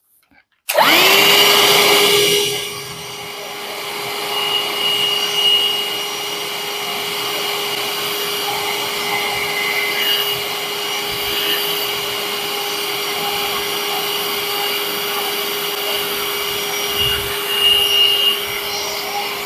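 Parkside 20V cordless handheld vacuum cleaner switched on under a second in. Its motor whines up to speed and then runs with a steady high whine, louder for the first couple of seconds, while it sucks up cookie crumbs.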